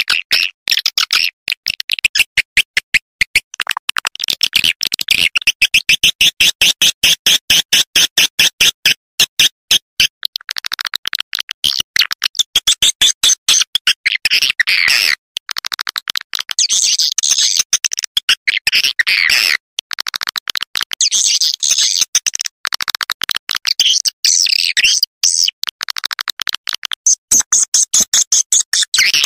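Swiftlet lure-call recording: rapid, rattling chirps of swiftlets repeated in phrases of a few seconds with brief breaks between them. This is the kind of call track played to draw swiftlets into a nesting house.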